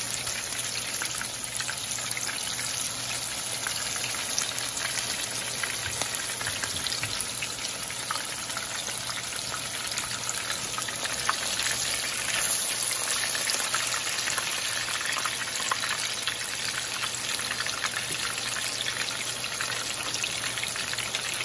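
Chicken chapli kebabs shallow-frying in hot oil in a pan: a steady sizzle with dense fine crackling.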